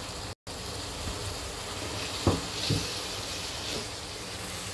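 Chicken mince and green beans sizzling in a frying pan as they are stirred with a slotted spatula, with two quick knocks of the spatula against the pan a little past halfway.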